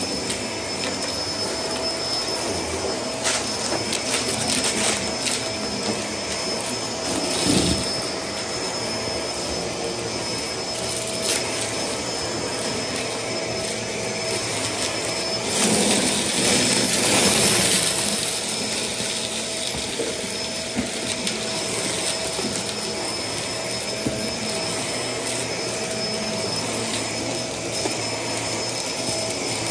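Stick vacuum running steadily with a constant whine, sucking up a dry mix of confetti and glitter from carpet. Scattered ticks and rattles of debris go up the nozzle, and there is a louder, rougher stretch a little past halfway through.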